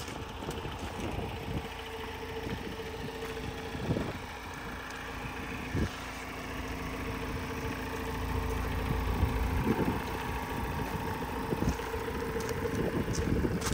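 Ford Transit Custom van's diesel engine idling steadily, its rumble growing as the front of the van comes near. There are a few short crunches, likely of gravel underfoot.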